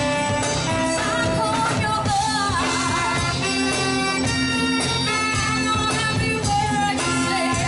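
Live band playing a pop song: a steady beat under sustained melody lines, with no sung words made out.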